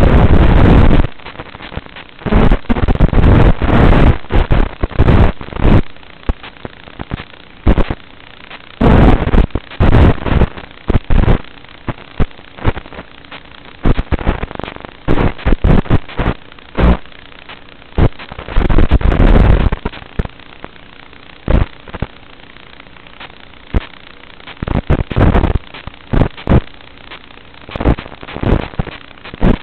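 Racing drone's electric motors and propellers, picked up by the onboard camera's microphone. Irregular loud bursts, from a fraction of a second to about a second long and loud enough to overload the microphone, come as the throttle is punched. In between are quieter stretches of low hum.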